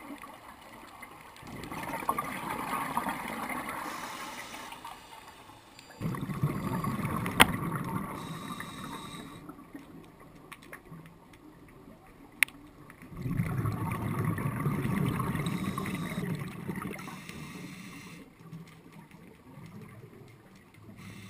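Scuba diver's exhaled bubbles gurgling underwater in three bursts of a few seconds each, with two sharp clicks in between.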